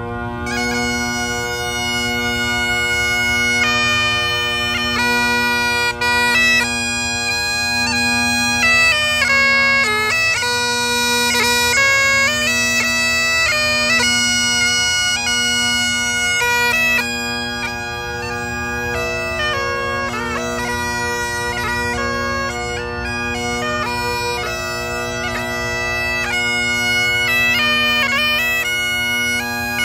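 Scottish bagpipe playing a tune, the chanter's melody over the steady bass and tenor drones, as a sound test of how well the drones are tuned to the chanter. The drone tone pulses slowly and evenly.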